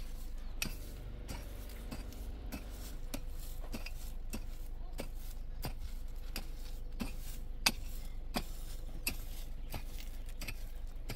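Kitchen utensils knocking and clinking irregularly, about one or two light knocks a second, with one sharper knock about two thirds of the way in.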